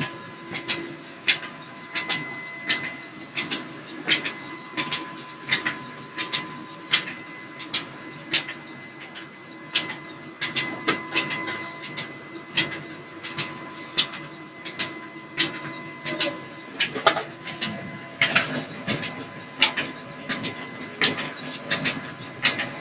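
Mustard oil expeller driven by a 25 hp motor, running steadily: a constant machine hum with a thin whine, and a sharp click repeating evenly about three times every two seconds.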